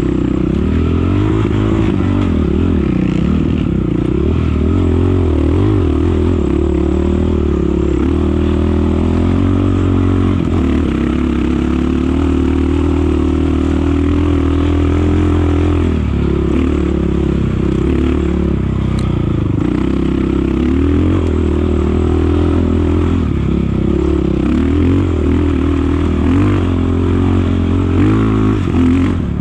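Off-road racing motorcycle engine running hard, its revs rising and falling again and again as the throttle and gears change.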